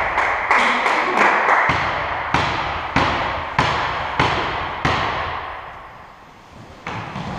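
Basketball being dribbled on a hard indoor court: a steady run of echoing bounces about every 0.6 s for the first five seconds, then two more bounces near the end.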